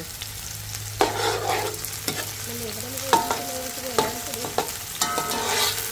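Onion, pepper and shallot frying and sizzling in a pot while being stirred, the utensil knocking against the pot about five times with short ringing clinks.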